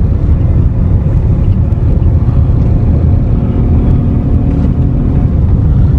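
A car driving on a rough road, heard from inside the cabin: a loud, steady low rumble of engine and tyres, with a faint engine hum rising out of it midway.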